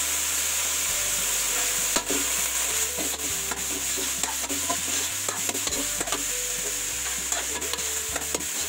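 Broccoli, red bell pepper and onion sizzling in oil in a metal wok over a strong fire, as a metal spatula stir-fries them. A steady hiss runs under frequent irregular scrapes and clicks of the spatula against the wok.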